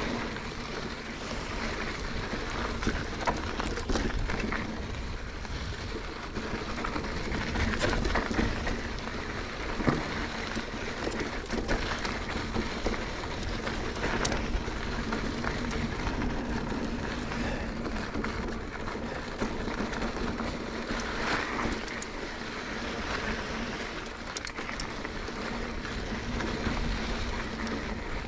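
Mountain bike descending a rough dirt and rock trail: tyres rolling and crunching over the ground, with frequent short knocks and rattles from the bike over bumps and a low rumble of wind on the microphone.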